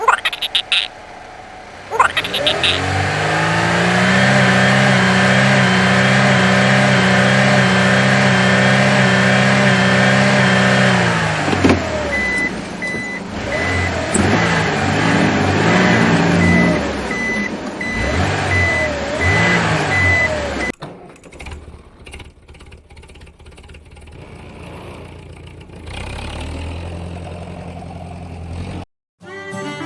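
Vehicle engine sound effect, as from a toy truck or tractor: a steady engine hum that starts about two seconds in. From about halfway it turns into a pitch that wobbles up and down, with a repeating reversing beep, and stops abruptly, leaving a few light clicks.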